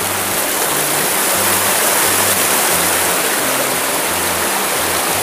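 River water rushing over rocks, a loud, steady, even rush.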